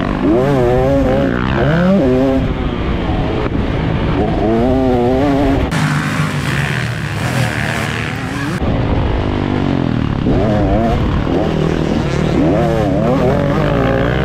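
Pit bike engine being ridden hard, its pitch rising and falling again and again as the throttle opens and closes. A loud rushing hiss covers it for a few seconds in the middle.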